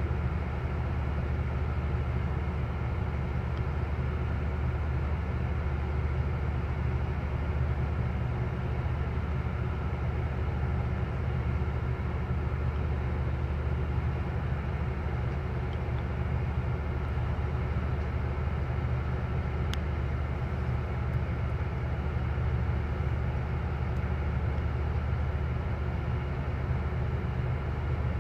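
A ferry's engines running steadily under way: a constant low drone with a steady hum above it.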